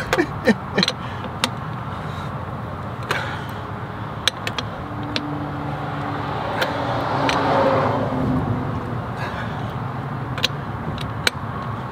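Scattered metallic clicks and clinks of a ratchet working the axle flange bolts on a semi-truck's wheel hub as they are snugged down after a flange seal replacement, over a steady low rumble that swells a little around the middle.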